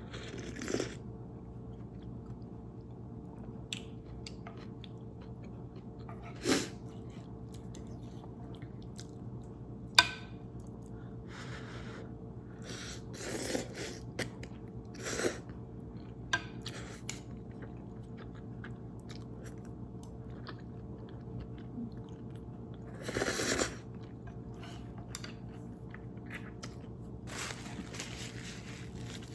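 Close-up eating sounds: a person chewing Buldak carbonara noodles, with scattered short smacks and clicks over a steady low hum.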